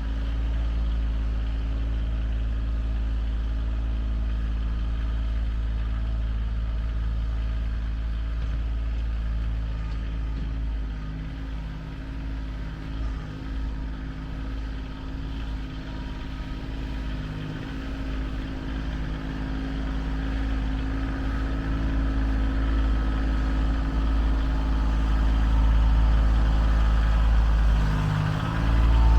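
A heavy engine running steadily under the rumble of its machine. It eases off for a while in the middle, then comes back up and grows louder toward the end.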